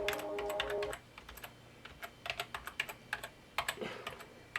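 Keys on a white Apple desktop keyboard being typed one at a time in irregular, separate clicks while the keyboard is being tested. A steady tone also sounds and stops about a second in.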